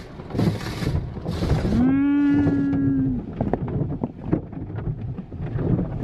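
Automatic car wash heard from inside the car: short bursts of water spray hitting the body and windshield, then scattered knocks and taps. About two seconds in, a steady low tone is held for over a second and is the loudest sound.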